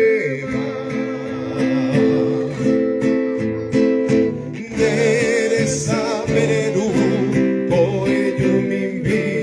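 Live Paraguayan folk music: strummed acoustic guitar accompanying a sustained melody with vibrato, the song carrying on between sung lines.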